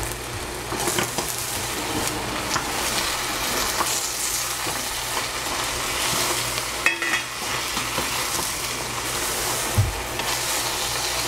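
Eggplant pieces sizzling in hot oil in a stainless steel saucepan while a wooden spatula stirs them, with a few sharp knocks of the spatula against the pan.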